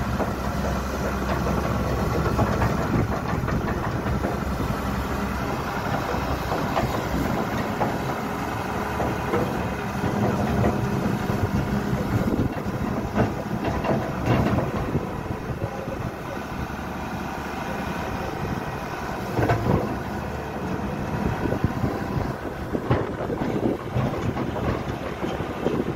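Caterpillar E200B excavator's diesel engine running steadily while its steel tracks clank and knock irregularly as it crawls up the ramps onto a lowbed trailer.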